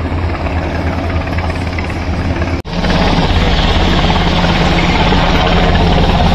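Sikorsky S-92 helicopter flying overhead: steady rotor beat over the whine of its twin turbine engines. A brief dropout about two and a half seconds in, after which it is louder and brighter.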